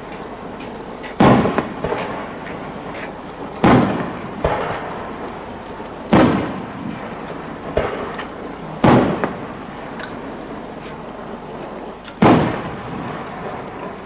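Aerial firework shells bursting: five loud booms about two and a half seconds apart, each followed by a fading echo, with light crackling between them. Steady rain hisses underneath.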